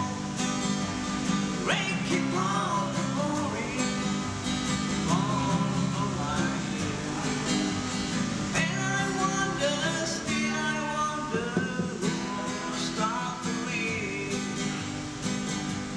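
Acoustic guitar strummed steadily, with a man singing a melody over it that comes and goes.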